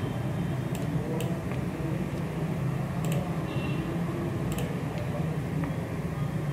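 Computer mouse clicking a few times, about four sharp clicks, over a steady low hum of background noise.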